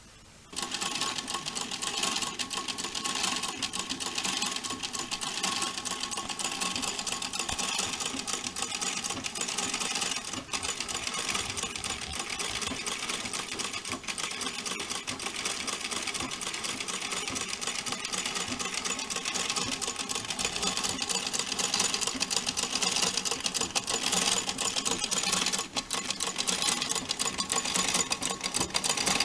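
1926 Singer sewing machine running at a steady speed, a fast, even clatter with a hum that starts suddenly about half a second in and gets a little louder in the last third.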